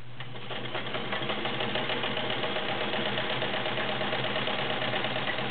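Kenmore 1757 all-metal sewing machine with a 1.2 amp motor starting up and running at speed, its needle mechanism clattering fast. It builds over about the first second, then runs steadily.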